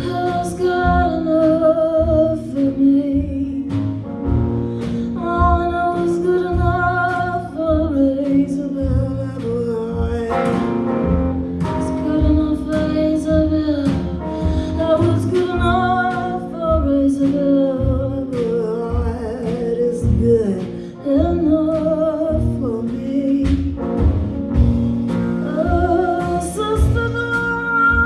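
Live band playing an instrumental stretch of a slow song: a wavering melodic lead over a steady pulse of low bass notes.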